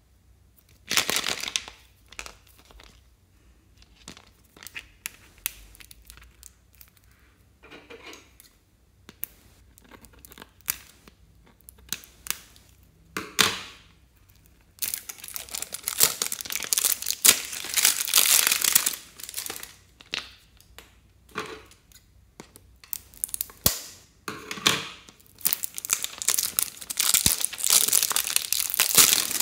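Plastic wrapping being torn and peeled off an L.O.L. Surprise toy ball, crinkling and crackling. A short burst about a second in and scattered crackles give way to long, loud stretches of crinkling in the second half.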